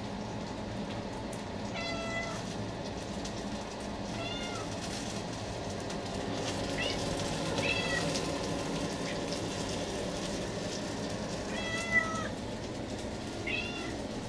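Domestic cat meowing repeatedly, begging for food: about six short meows a second or two apart. Under them runs a steady hiss from the frying pan.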